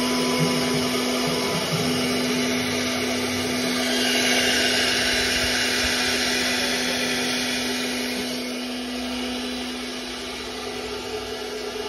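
Techno-Cam CNC router spindle running with a steady whine while its small bit cuts into a white sheet. A hissing cutting noise swells about four seconds in and eases off after about eight seconds.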